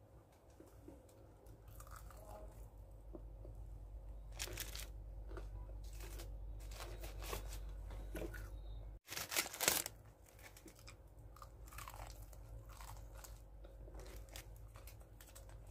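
Close-up crunching and chewing of crispy breaded fried chicken: a run of crackling bites and chews, loudest about nine seconds in.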